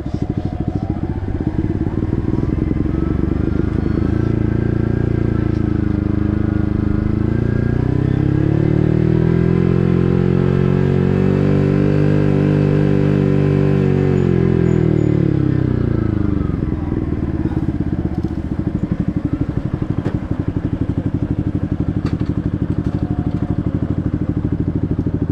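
Yamaha MT-15's 155 cc single-cylinder engine through an SC Project full-system exhaust, ridden on the road. The revs climb from about four seconds in and hold high for several seconds, then drop away around sixteen seconds. It settles into a low, pulsing beat near the end.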